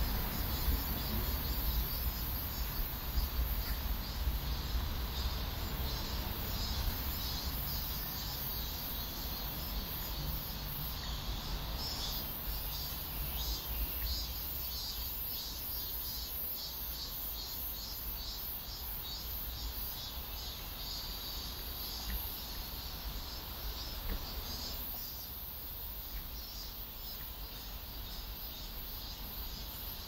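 Summer insects calling steadily in the park's trees, high and continuous, with a fast repeating pulsed call and some bird calls over a low rumble.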